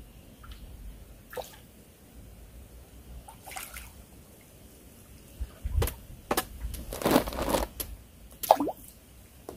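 A hooked crucian carp splashing and thrashing at the water's surface as it is played on the line: a series of irregular splashes, the longest and loudest about seven seconds in.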